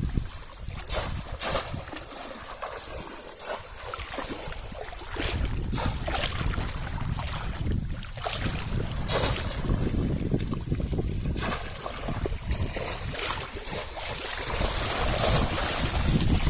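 Wind buffeting the microphone, an uneven low rumble, with brief sharp noises at intervals.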